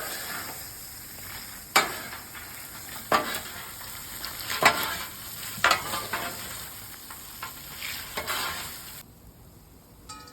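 Snack mix sizzling in butter and Worcestershire sauce on a Blackstone flat-top griddle as it is stirred and turned, with a sharp scrape on the steel top every second or two. The sizzle drops away about nine seconds in.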